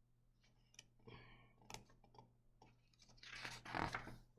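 A page of a large picture book being turned by hand: a few faint paper clicks and scratches, then a short paper swish about three seconds in.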